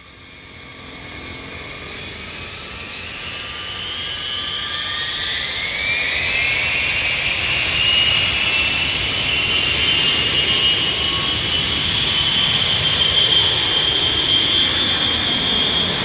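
High engine whine fading in from silence. The pitch rises about five seconds in and then holds steady while a low rumble builds underneath.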